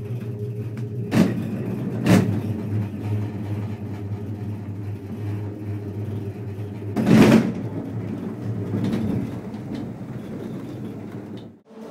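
Poma eight-seat gondola lift station running: the drive machinery keeps up a steady hum while the cabins move through the station, with two sharp clunks at about one and two seconds in and a louder clatter about seven seconds in.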